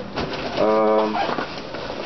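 Hands rummaging through packing material and bubble wrap in a cardboard box, with faint crinkles and clicks. A little after the start comes a short, steady, pitched sound of about half a second.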